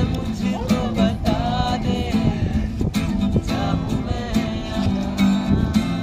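Acoustic guitar strummed in a steady rhythm, with men's voices singing along to it.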